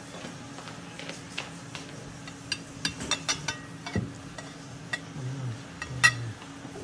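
Ceramic dinner plates being set down and moved about on a dining table: a run of light clicks and knocks, a dull thud about four seconds in, and a sharper clink about six seconds in.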